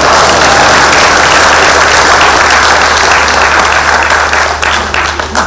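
Audience applauding after a speech, a dense steady clapping that starts at once and tapers off near the end.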